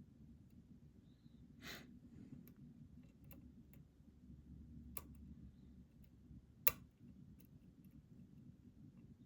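Scattered small metallic clicks of a deep hook pick and tensioner working the pins of a pin-tumbler challenge lock, with one sharper click near seven seconds in.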